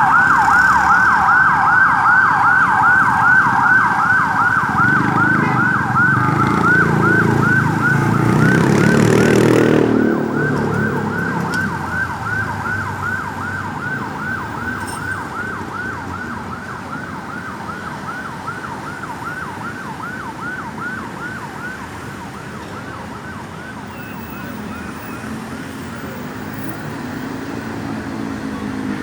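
Ambulance siren in a fast yelp, a rapid up-and-down wail about three times a second. The vehicle's road noise swells and peaks about nine seconds in as it passes, then the siren fades away into the distance.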